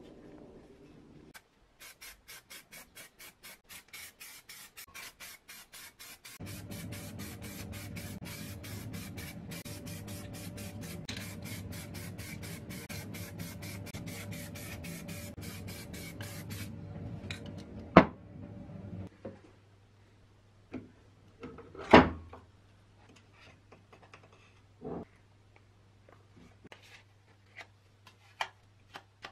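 Aerosol spray paint can in use: a fast, even rattling click runs for most of the first half, with a steady hum joining a few seconds in. In the second half come scattered scrapes and two loud sharp knocks.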